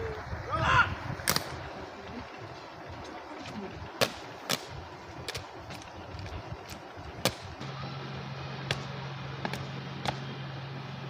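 A short shouted drill command about a second in, then a string of sharp, irregularly spaced cracks. A steady low hum starts about eight seconds in.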